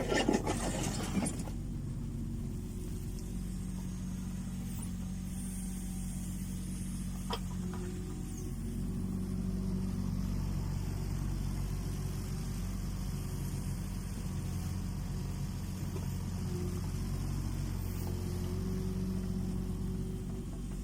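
Kubota U20 mini excavator's diesel engine running steadily as it works. A brief clattering in the first second or so and a single sharp click about seven seconds in.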